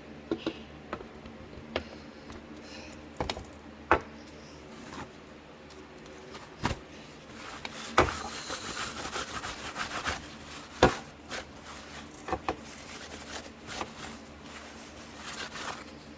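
Scattered knocks and clunks from handling a cylinder head on a work surface. About eight seconds in comes a couple of seconds of rough rubbing, from the head being worked against abrasive paper.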